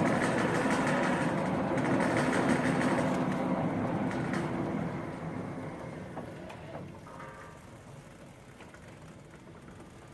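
PP-1621AL automatic pallet stretch wrapper running its wrap cycle: a steady mechanical hum from the turntable and pre-stretch film carriage drives. About halfway through it fades away as the machine winds down, with a few light clicks.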